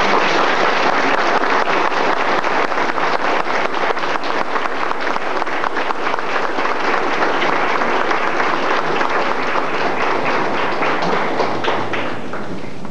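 Audience applauding, a dense crowd of hand claps that thins out and stops near the end.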